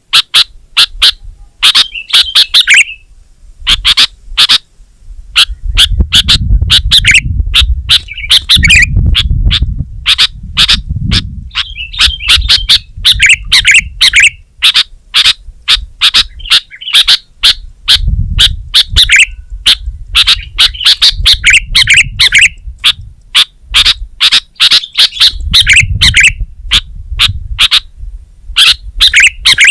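Sooty-headed bulbul (kutilang) calling vigorously: sharp chips repeated several times a second, broken now and then by short bubbly warbled phrases. A low rumble sits underneath at times.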